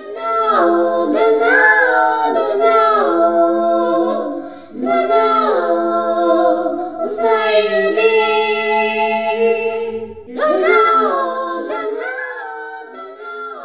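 Unaccompanied voices singing a song in three phrases, with long held notes and short breaks between phrases; the last phrase fades toward the end.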